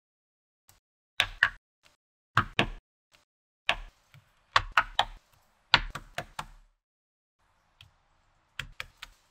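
Small magnetic balls clicking sharply as they snap together, in quick groups of two or three clicks, about six groups in all.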